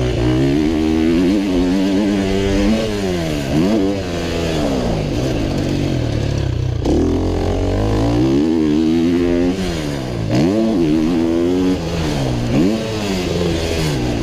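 A 125cc motocross bike's engine revving hard, its pitch climbing and falling over and over as the rider works the throttle and gears, with several sharp drops in revs.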